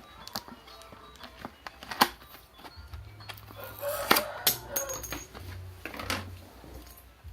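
Small objects and packaging being handled: scattered clicks and knocks, the loudest about two and four seconds in, with faint background music.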